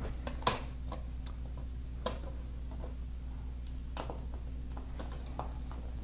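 Scattered light clicks and taps of the keypad's plastic back plate and screws being handled and set against the wall, the loudest about half a second in, over a steady low hum.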